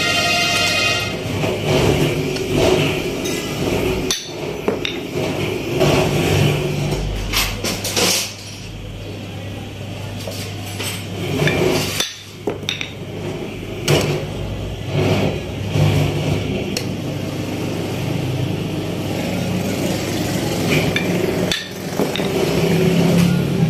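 Scattered metallic knocks and clinks as a motorcycle crankshaft assembly and its connecting rod are handled, turned and set against a steel truing stand, over a steady low background hum.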